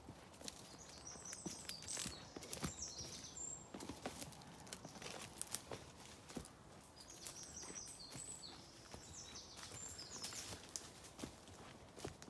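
Footsteps snapping twigs and rustling through dry woodland undergrowth, with a small songbird singing two short, high, quick phrases, about a second in and again around seven seconds.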